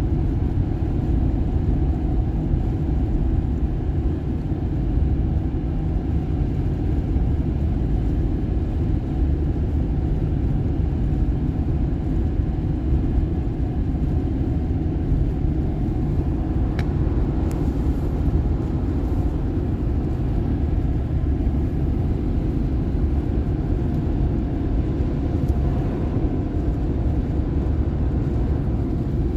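Car driving at highway speed: a steady low rumble of engine and tyres on the road, unchanging throughout, with one faint tick about halfway through.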